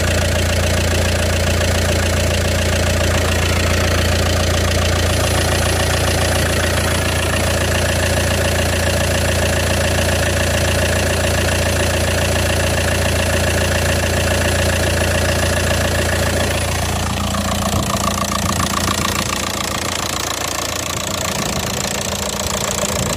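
VW Passat 2.0 TDI Pumpe-Düse (BHW) four-cylinder diesel idling steadily, without the 'shaka shaka' rattle it made before the oil pump conversion. The deep hum drops off about 17 seconds in.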